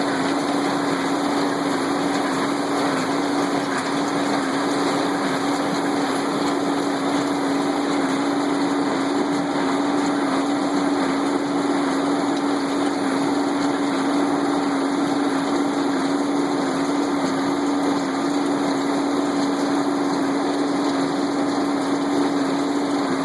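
Tractor engine running at a constant speed with a steady, unchanging hum, driving the baling machinery.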